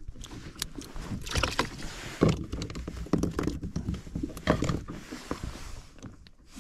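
Handling noise from unhooking a freshly caught horse mackerel with a fish grip and pliers on a small boat: irregular clicks, knocks and rustles over a low rumble.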